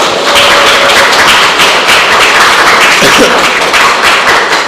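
Studio audience applauding: a dense, steady clatter of many hands clapping.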